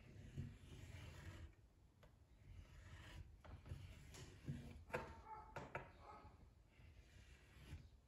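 Near silence, with faint rubbing and scratching from a paint marker's tip drawn along a painted wall.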